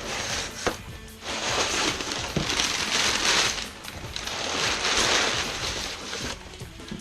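Cardboard shipping box being cut open and handled: two long rough scraping, rustling stretches with a few sharp clicks, over soft background music.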